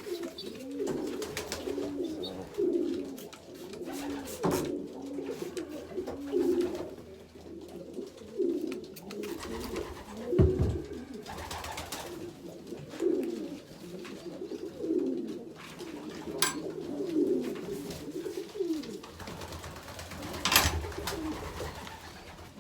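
Racing pigeons cooing over and over, a call every second or two. A few short sharp sounds cut in about four, ten, sixteen and twenty seconds in.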